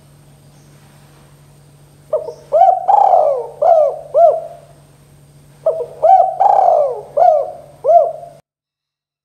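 Spotted dove (tekukur) cooing: two phrases of five coos each, the third coo in each phrase the longest. The first phrase starts about two seconds in and the second about six seconds in.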